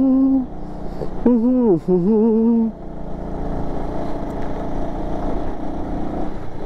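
A man singing in long, wavering held notes for about the first three seconds, over the steady running of a Bajaj Avenger 220's single-cylinder engine and road noise while riding. After that only the engine and road noise go on.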